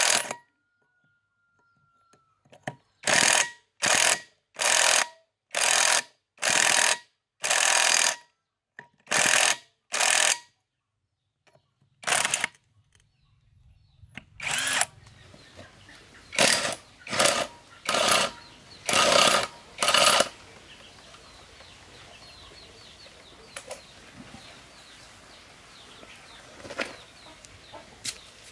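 Cordless impact wrench fired in about fifteen short bursts of half a second each on a rusted wheel hub nut, working it loose. It stops near the end, leaving faint bird chirps and a couple of light knocks.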